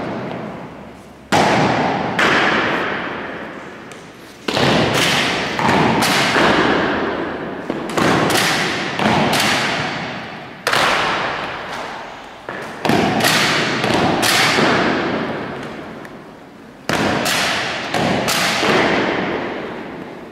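Spanish Legion honour guard's drill: a series of sharp knocks from boots stamping and rifles being struck in unison on a marble floor, coming singly and in quick pairs, each echoing for a second or more in the church.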